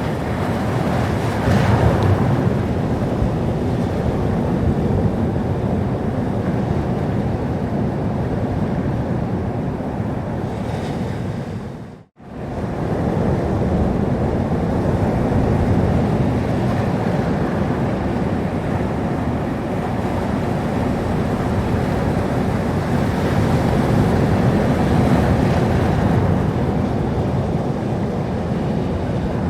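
Sea surf washing steadily onto the shore, a continuous deep rush of breaking waves with gentle swells. About twelve seconds in the sound briefly fades out to near silence and fades back in.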